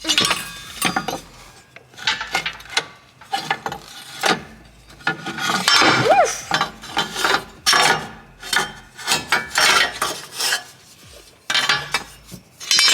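Metal clanking, clinking and scraping at an uneven pace as a car's stock shifter assembly is twisted and worked out from under the transmission, with a brief squeak about six seconds in.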